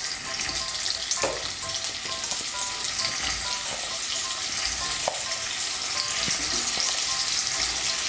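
Steamed cauliflower florets sizzling in hot mustard oil in a kadai as they are dropped in by hand, the frying hiss growing slightly louder as the pan fills.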